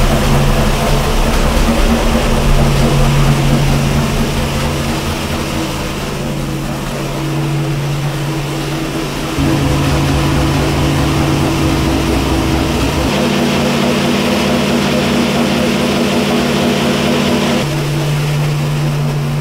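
426 Hemi V8 running on an engine dyno at a steady fast idle of about 2,100 rpm while it warms up. Its tone and level change suddenly a few times.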